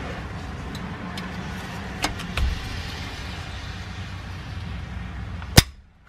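A breaker bar on a seized differential fill plug: a few light metal clicks as the bar is set and levered, then one loud sharp crack near the end as the plug gives.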